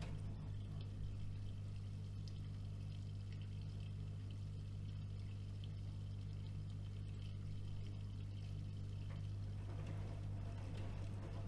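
AEG Öko-Lavamat washing machine running through its wash programme: a steady low mains hum with water moving inside the machine.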